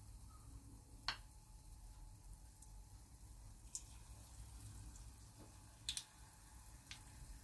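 Faint sizzle of buñuelo batter frying in hot sunflower oil in a saucepan, with a few sharp ticks scattered through, the strongest about a second in.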